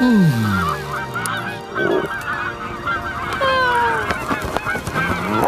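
A flock of cartoon geese honking, with many short calls overlapping. It opens with a brief falling tone.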